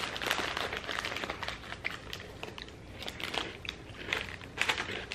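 Plastic snack pouch crinkling as crackers are handled and pulled out, mixed with crunchy chewing, in dense runs of crackles near the start and again near the end.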